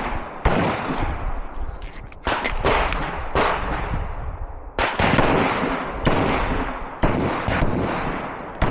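A string of pistol shots fired about one a second, each with a long echoing tail, during a timed competition stage.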